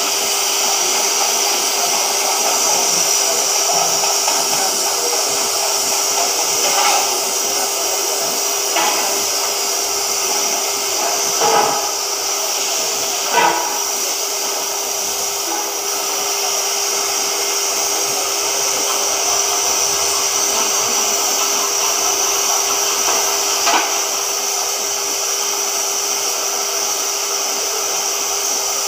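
CNC oxy-fuel cutting torch hissing steadily as it burns through thick steel plate, over a steady hum. A handful of short knocks or pops stand out, mostly in the first half.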